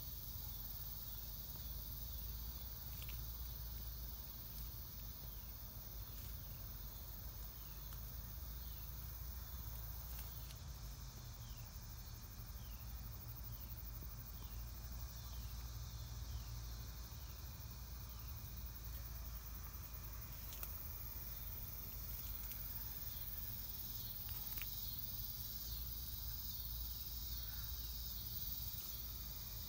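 Summer evening insect chorus of crickets and other field insects: a steady high buzzing with a regular chirp repeating for much of the time, over a low rumble.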